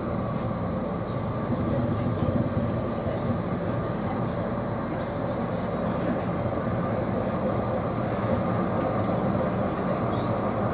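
Interior running noise of an Edinburgh CAF Urbos 3 tram in motion: a steady rumble of wheels on rail, with faint high steady whines and occasional light ticks.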